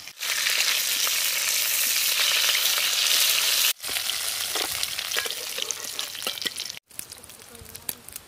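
Pieces of rohu fish sizzling as they fry in hot mustard oil in a wok, with a steel spatula scraping and clinking as the pieces are lifted out. The sizzle breaks off abruptly twice, after about three and a half seconds and again near seven seconds, and is quieter after each break.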